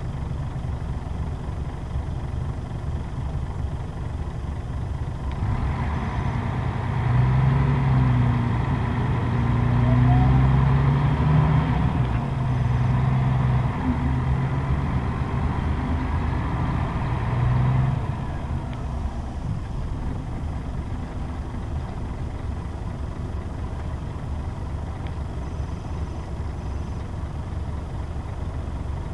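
Scania K124 bus's straight-six diesel heard from inside the cabin: idling at a stop, then pulling away about five seconds in and accelerating hard, its note breaking off several times as the manual gearbox is shifted up. About eighteen seconds in it eases off to a quieter, steady run.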